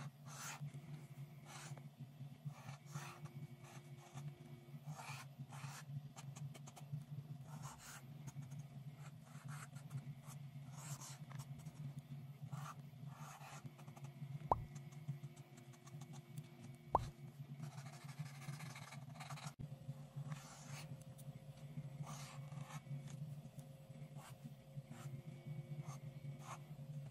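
Brauberg paint marker drawing on black paper: many short scratchy strokes of the felt tip across the paper, with two sharp taps a little past halfway, over a steady low hum.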